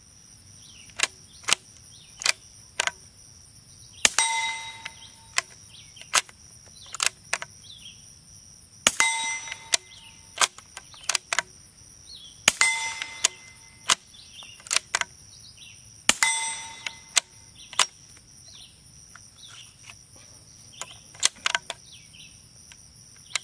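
Suppressed .22 rifle shots striking a steel target, four times, each giving a clear ringing ding that dies away over about a second, with sharp metallic clicks in between. Insects chirp steadily in the background.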